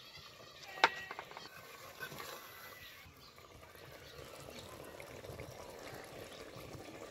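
A single sharp clink of a cooking utensil about a second in, ringing briefly, then faint low background noise with a few soft ticks.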